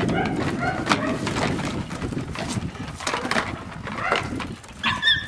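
Belgian Malinois puppy tugging and shaking a rag toy on paving: scuffling and clattering throughout, mixed with short high-pitched calls, loudest about five seconds in.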